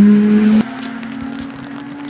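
Mazda RX-7 Group B's naturally aspirated 13B rotary engine at high revs, loud and holding one pitch, then an abrupt cut about half a second in to a much fainter, distant engine note running steadily.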